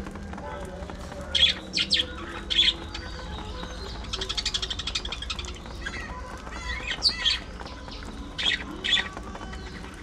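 Budgerigars squawking and chirping: a few loud, sharp squawks, a rapid chattering trill a little past the middle, then more squawks near the end.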